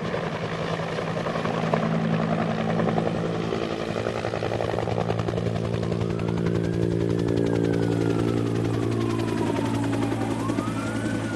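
Helicopter flying close by, its rotor beating in a fast, steady chop over a droning engine hum. In the second half a siren-like tone slowly rises, falls and rises again over it.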